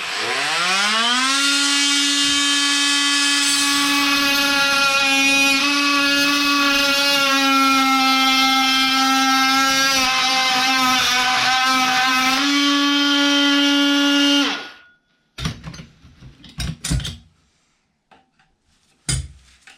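Oscillating multi-tool spinning up with a rising whine, then running steadily at high speed for about fourteen seconds as it cuts into an old toilet fitting, and stopping abruptly. A few sharp knocks follow near the end.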